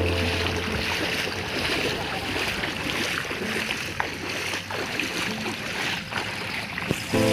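Steady rush of flowing floodwater with a few faint clicks. Background music is heard briefly at the start and comes back in near the end.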